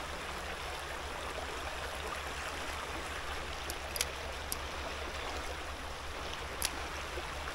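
Small creek running steadily, a constant hiss of flowing water. A few brief clicks come around the middle and one more near the end.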